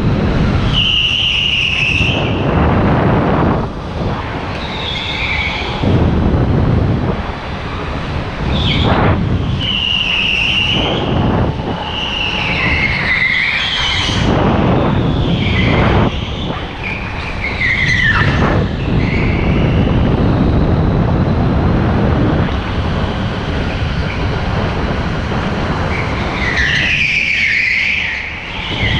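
Rental go-kart running hard on the track, its motor and rolling noise dipping briefly a few times. Over it the tyres squeal through the corners, several high squeals of a second or two each.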